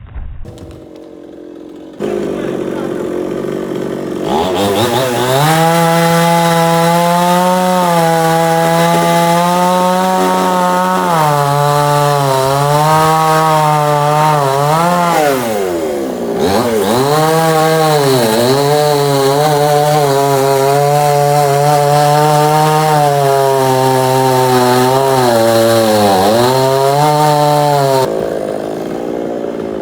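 Chainsaw engine speeding up and running at high speed, as in cutting a tree. Its pitch sags and recovers twice, once around the middle and once near the end, and the saw drops back shortly before the end.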